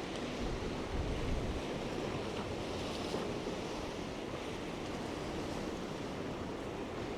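Ocean waves washing steadily on the shore, with wind rumbling on the microphone.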